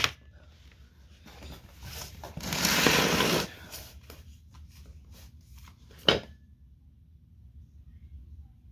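Paper rustling close to the microphone, swelling to a louder rustle for about a second, then a single sharp knock a few seconds later.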